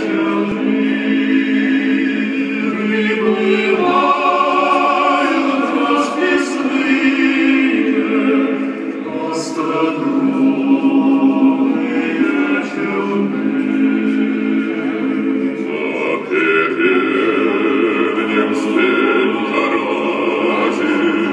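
Classical vocal music with sustained choral voices, played back through a hi-fi loudspeaker system in a demo room.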